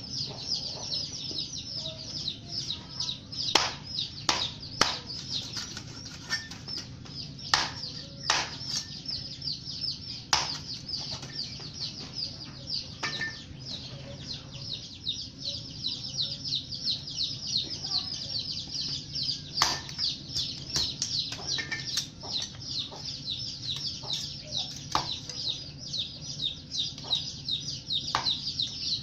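Sharp clicks and knocks of pieces of banana stem and thin bamboo skewers being handled and pressed together, a dozen or so scattered through, over a constant rapid high-pitched chirping.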